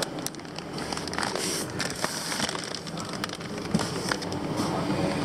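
Plastic fish-shipping bags rustling and crinkling as they are handled and lifted out of the box, with many small irregular crackles and clicks.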